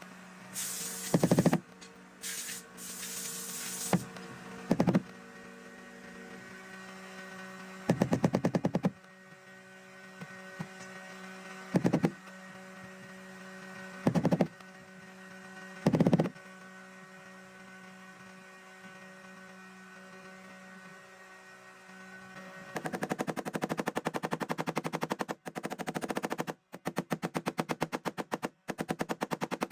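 Heat gun running with a steady hum, broken by short bursts of very rapid rattling clicks about every few seconds. About two-thirds of the way in the hum fades and the rapid clicking runs almost without a break.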